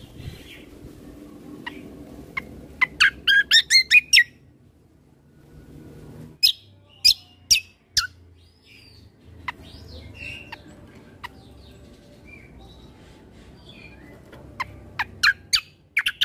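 Kecial kombo (cucak kombo) songbird singing in loud volleys of rapid, sharp chirps, with softer whistled notes in the pauses between volleys. A low steady rumble sits underneath.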